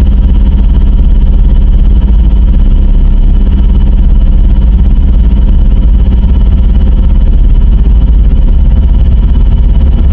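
Loud, heavily distorted electronic drone with heavy bass and a faint steady high tone, part of an Emergency Alert System-style alarm.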